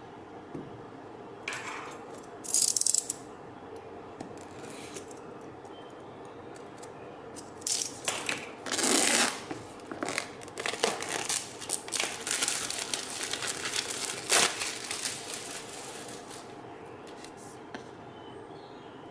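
Packaging being handled and opened during an iPad mini unboxing: rustling, crinkling and tearing in irregular bursts. A couple of bursts come about two seconds in, and the handling is busiest from about eight to sixteen seconds in.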